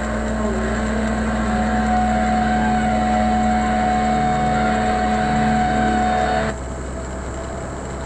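Semi truck running, heard inside its cab: a steady drone of engine and road noise with a steady hum in it. It drops off abruptly about six and a half seconds in.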